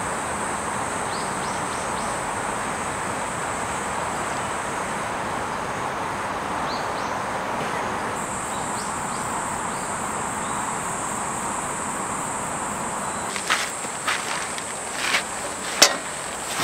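Riverside ambience: a steady rush of flowing river water under a constant high-pitched insect drone, with a few sharp clicks or knocks near the end.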